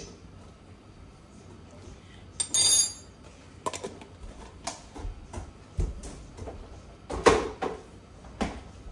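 Kitchen handling sounds: a short loud rasp about two and a half seconds in, then scattered light clicks and knocks, and a sharp knock about seven seconds in as a refrigerator door is pulled open.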